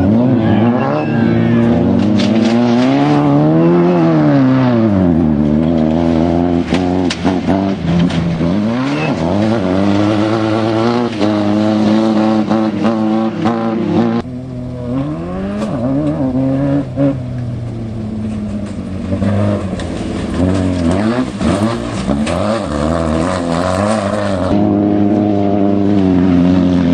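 Off-road desert race car engine running hard, its pitch repeatedly climbing and falling as it accelerates and lifts off, with frequent short knocks over it. The sound drops suddenly about halfway through, then carries on.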